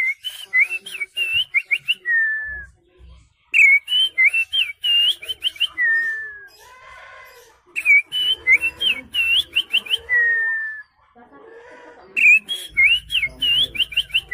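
A man whistling by mouth in imitation of a songbird: a phrase of quick rising and falling notes that ends in one long falling note, repeated four times a few seconds apart.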